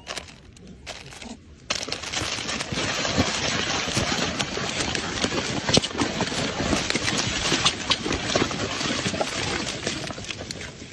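Plastic snack wrappers crinkling and a cardboard box rustling as monkeys snatch wrapped cakes from it, a dense crackle of many small clicks that starts up about two seconds in.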